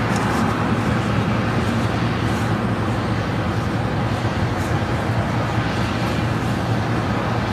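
Steady outdoor background noise: an even hiss with a constant low hum underneath and no distinct events.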